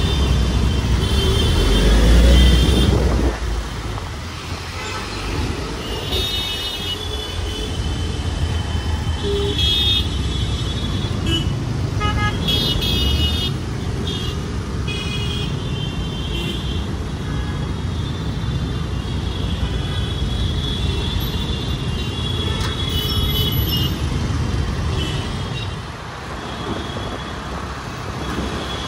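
Busy city road traffic: a steady low rumble of engines and tyres with frequent short vehicle horn honks from several vehicles, one after another every few seconds. The rumble is louder for the first few seconds.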